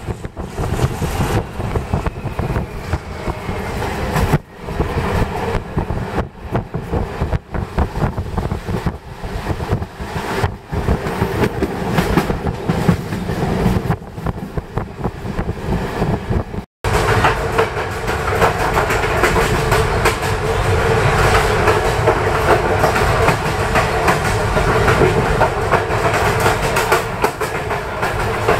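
MDmot 3017 diesel railcar running along the track, heard on board. About seventeen seconds in the sound cuts out for an instant, then continues steadier and louder.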